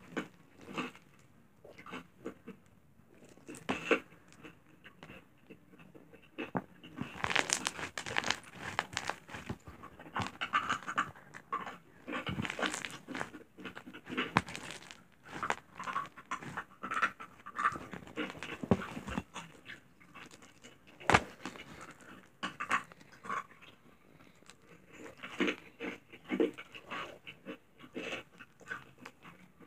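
Pink slime being squeezed and stretched in the hands: irregular wet clicks and crackles, sparse at first and busiest in the middle, with one sharper pop about two-thirds of the way through.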